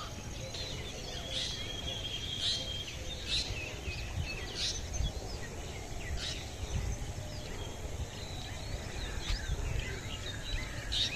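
Small birds chirping and calling, many short calls scattered throughout and one brief held whistle about a second in, over a steady low rumble.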